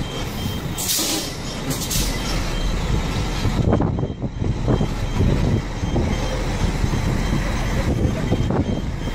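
A semi-truck's diesel engine runs at low revs as the rig manoeuvres slowly. Two short hisses of air come in the first two seconds, and a faint high beep repeats steadily throughout.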